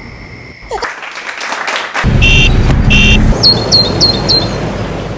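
Street traffic rumble with two short car-horn toots a little over two seconds in, followed by four quick high chirps.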